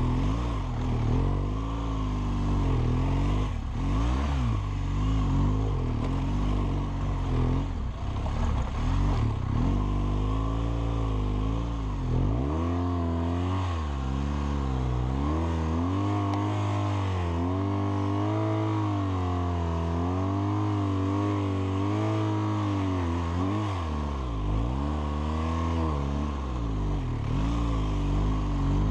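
BMW R1200GS boxer-twin engine revving up and down as the throttle is opened and closed over sand dunes, heard from on board the bike. Its pitch rises and falls over and over, with short drops where the throttle is rolled off.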